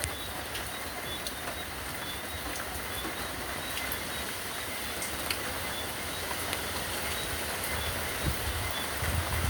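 Steady outdoor noise: an even hiss with scattered faint ticks and a few soft low thumps near the end.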